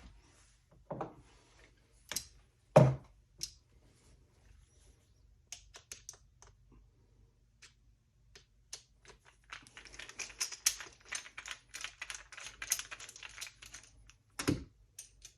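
A Phillips screwdriver loosening the screw of the barrel clamp on a Remington 870 magazine extension. Scattered clicks and knocks of the tool and metal parts are handled, then there is a run of rapid small clicks from about ten seconds in, and a louder knock near the end.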